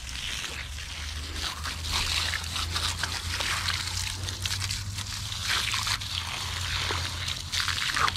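Water trickling and sloshing, with many small splashes over a steady low hum.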